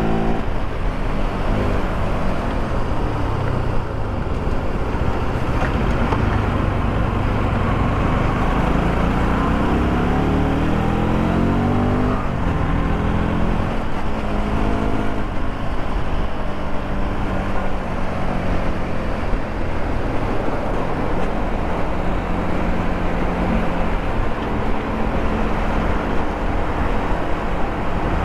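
Bajaj Pulsar RS200's single-cylinder engine, fitted with a K&N air filter, running under way. Its pitch climbs steadily for a few seconds, falls away sharply about twelve seconds in, then rises and holds again.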